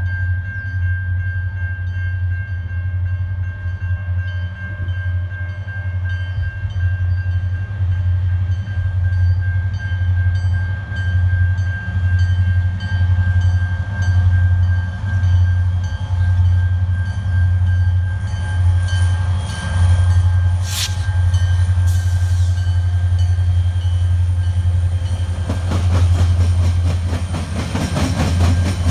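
Diesel freight locomotives, CN #5281 and #5328, running with a steady low engine rumble as they approach. In the last few seconds it gets louder and rougher as the engines pass close by, with wheels clacking over the rails.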